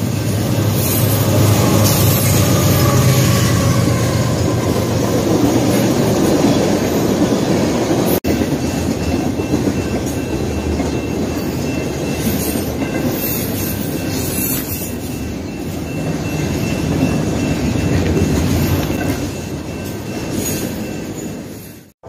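Freight trains passing close by, with CSX diesel locomotives and a string of intermodal and tank cars: a steady, loud rumble and clatter of wheels on the rails, with a faint high squeal running under it. The sound fades away near the end.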